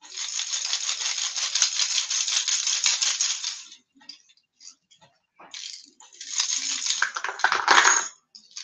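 Tangled deep-diving crankbait fishing lures clattering together, hooks and bodies knocking, as the bunch is shaken and pulled apart. It comes in two spells of dense, rapid clicking: the first about four seconds long, the second about two seconds long near the end.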